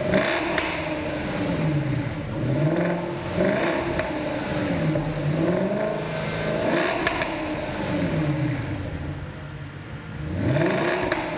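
Jaguar XKR's supercharged V8 revved in place through a custom Fabspeed Maxflo exhaust: the engine note climbs and falls back three times, with a few sharp cracks near the tops of the revs.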